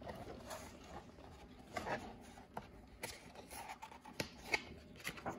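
Faint rustling and light clicks of a hand handling and turning a paper page of a picture book.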